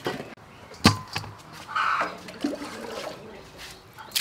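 A raw pork leg is set down with a heavy knock on a metal dish about a second in, followed by a few softer handling knocks.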